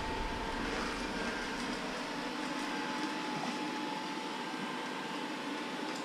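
IKOHS Netbot S15 robot vacuum cleaning a wooden parquet floor: its suction fan and brushes run with a steady hiss and a faint thin whine.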